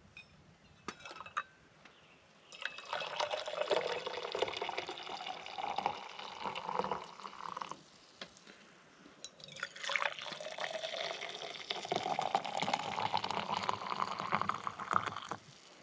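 Liquid poured into a container twice, each pour lasting about five seconds, its pitch rising as the container fills.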